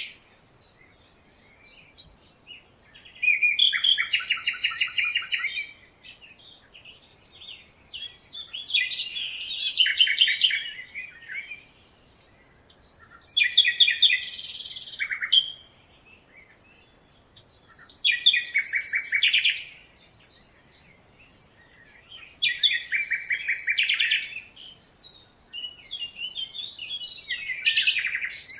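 A songbird singing in rapid, trilling phrases of about two to three seconds each, repeated six times with short pauses between.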